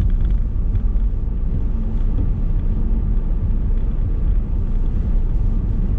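Car being driven, a steady low engine and road rumble heard from inside the cabin.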